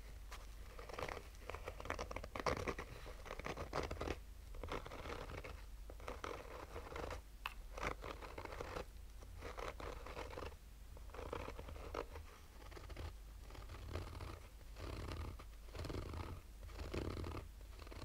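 Slow fingernail scratching on a textured fabric-covered sunglasses case: a run of short scratching strokes with brief pauses between them, over a steady low hum.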